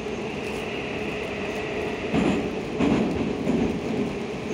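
81-725.1 'Baltiets' metro car running between stations, heard from inside the car: a steady rolling rumble with a held hum, and two heavier wheel clacks about two and three seconds in.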